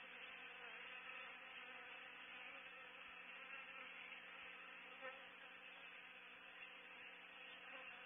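Steady, faint buzzing drone of many honey bees swarming at a nest box.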